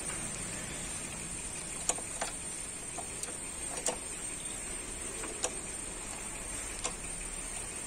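A handful of short, sharp clicks and clunks, about seven in eight seconds, from the gear lever and pedals of a stripped jeep chassis being worked by hand and foot, with the engine not running. A steady high-pitched whine sits under them.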